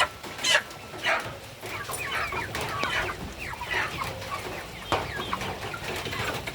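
A flock of 45-day-old meat chickens clucking, with many short overlapping calls, and a single sharp knock about five seconds in.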